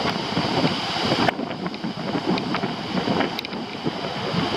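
Strong wind buffeting the microphone, with ocean surf rushing behind it.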